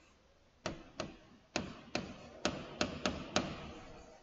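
A stylus tapping on a pen tablet or touchscreen while a word is handwritten: about eight sharp, separate taps, irregularly spaced, one as each pen stroke touches down.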